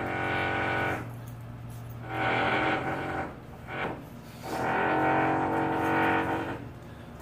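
Guitar music playing in phrases of one to two seconds, with short quieter gaps between them.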